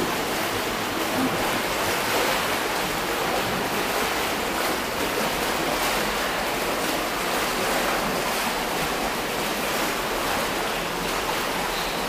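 Steady rushing, sloshing water in an indoor swimming pool, stirred by a swimmer doing breaststroke.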